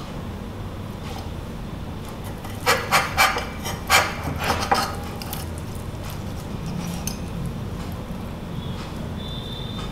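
Metal knife and fork cutting through a bell pepper omelette ring, scraping and clicking against the plate in a quick cluster of sharp strokes a few seconds in, over a steady low hum.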